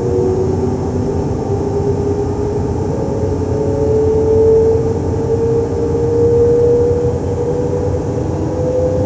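SNCF Z 20500-series (Z2N) double-deck electric multiple unit standing at the station, a steady electrical hum and rumble with a whine that slowly rises in pitch.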